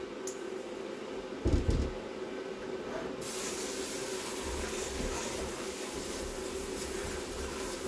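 A metal bowl set down with a clunk, then about three seconds in the kitchen sink tap is turned on and water runs steadily, rinsing peeled potatoes.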